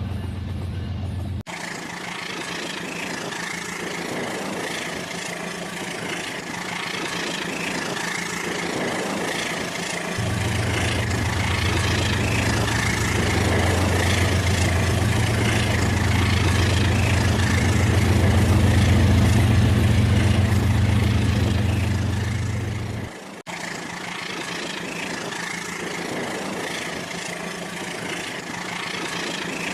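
Rail King battery-powered toy train running, a steady mechanical hum with a low drone that changes abruptly about a second and a half in, grows stronger from about ten seconds in, and cuts out near twenty-three seconds.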